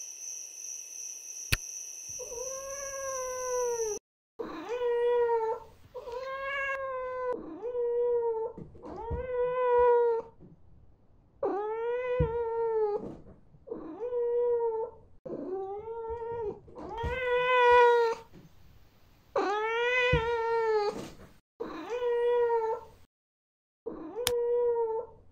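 Crickets chirping for the first few seconds, then a ragdoll cat meowing over and over: about a dozen drawn-out calls, each rising then falling in pitch, a second or two apart. Repeated night-time meowing of a cat calling to wake its owner.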